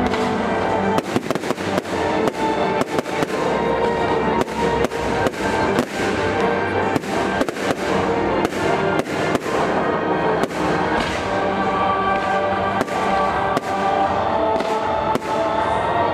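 Fireworks bursting in quick, irregular succession, sharp bangs over the music soundtrack of a pyromusical show playing throughout.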